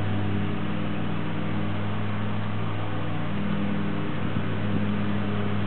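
Steady low machine hum with a constant hiss behind it, unchanging throughout; a few faint knocks about four seconds in.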